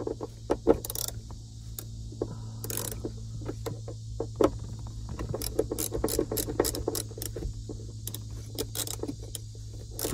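Hand ratchet with a Torx bit clicking as it runs the seatbelt's upper anchor bolt into the pillar, in short quick runs with a few louder clacks of the tool against the bolt.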